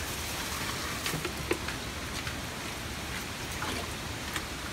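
Small splashes and drips of water as hands grope through a shallow muddy pool, over a steady watery hiss, with a few sharp ticks about a second in, a second and a half in, and near the end.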